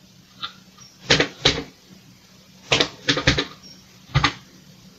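Keys of a Commodore VIC-20 keyboard clacking as a number is typed in: about six separate keystrokes, unevenly spaced, some in quick pairs.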